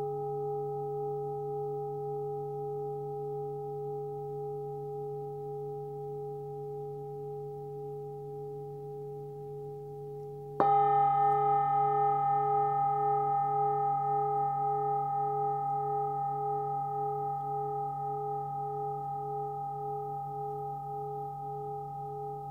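Hand-forged 23.5 cm Nepalese singing bowl with a low fundamental near 143 Hz (D), ringing and slowly fading, then struck again about halfway through and ringing on with a steady pulsing wobble as it decays.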